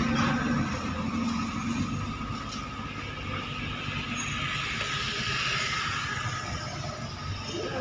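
Bus engine running close by as it moves through, with a continuous rushing rumble.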